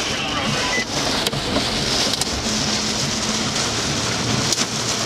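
Heavy rain and wind on a vehicle, heard inside the cab over the steady rumble of engine and road noise, with a few sharp knocks against the body.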